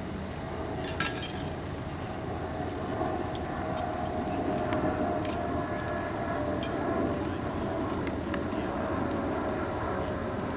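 Diesel locomotive running steadily with a low drone and a faint whine, with about half a dozen sharp clicks or knocks scattered through it.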